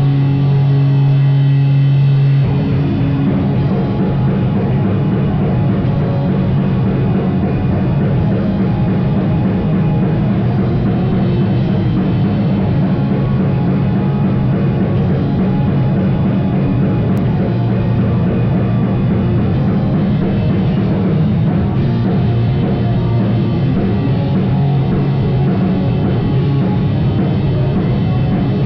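Live rock band playing loudly with drum kit. A held low note gives way about two seconds in to the full band driving with drums.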